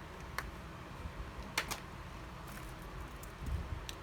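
Multimeter probe tips tapping against an iPad logic board: a few light clicks, two close together about a second and a half in, then fainter ticks.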